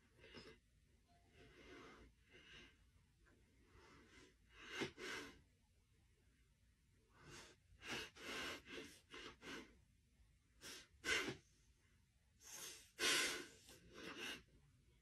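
Soft, irregular breathing and sniffing from a dog and a man face to face, as the dog noses and licks the man's face: a string of short breathy puffs, the loudest about 11 and 13 seconds in.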